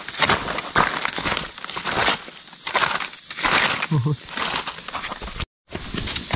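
Loud, steady, high-pitched drone of insects in the forest, broken by a brief gap near the end. Under it, dry leaves and soil rustle and scrape as the ground is poked and cleared while searching for mushrooms.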